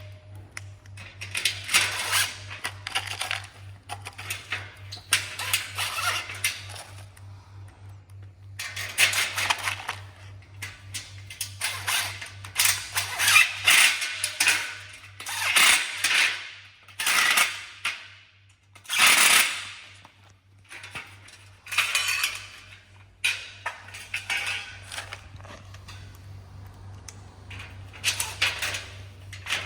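Metal parts clattering and clinking in repeated bursts about a second long, over a steady low hum.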